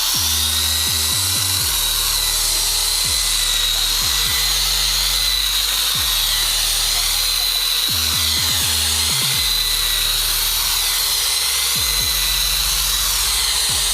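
Electric drill fitted with a cutter blade as a makeshift grass cutter, its motor running steadily with a high whine while cutting grass.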